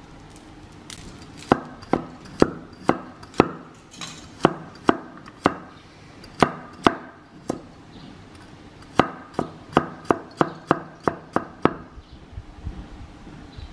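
Cleaver slicing fresh turmeric root on a wooden chopping board: sharp knocks of the blade hitting the board, in uneven runs of a few strokes with short pauses, the last run a little quicker, stopping shortly before the end.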